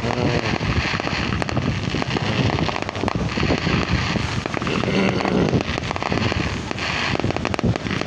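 Fireworks grand finale: a dense, unbroken run of bangs and crackling as many shells burst in quick succession.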